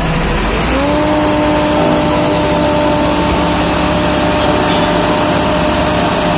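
Tractor diesel engine revving up about half a second in and then holding at high revs, working to pull an overloaded sugarcane trolley.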